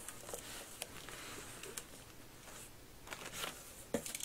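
Cardboard shipping box being opened by hand: faint scraping and rustling of cardboard and packing tape, with a few light clicks and taps.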